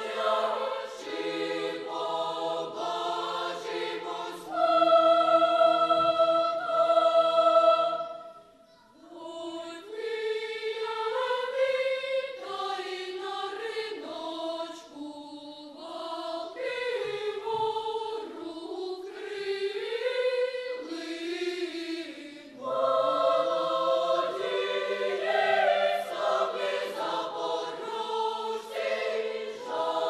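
Children's and teenage choir singing in several parts: a loud held chord about five seconds in, a short lull a few seconds later, then a moving passage that swells louder again about three quarters of the way through.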